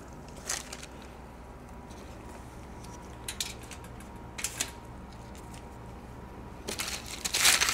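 Kitchenware being handled: a few light clicks and knocks a second or more apart, then a denser run of clatter near the end, over a steady low hum.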